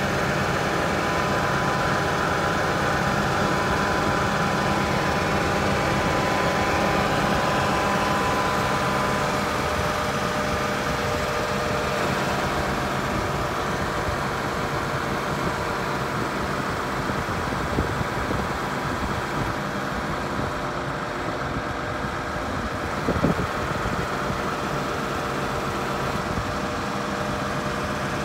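A New Holland 8970 tractor's six-cylinder diesel engine idling steadily. A single brief knock about three-quarters of the way through.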